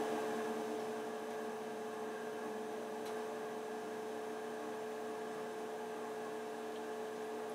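Steady electrical hum: several unchanging tones over a faint hiss, with no other sound standing out.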